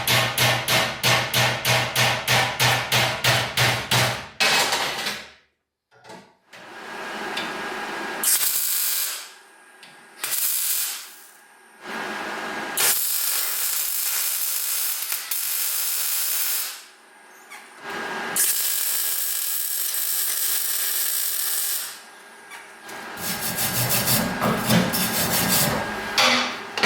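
Metalworking in a workshop: several separate bursts of a power tool or welder, each a few seconds long with a dense hissing sound, broken by short pauses. A rhythmic pulsing of about five beats a second over a low hum opens and closes the stretch.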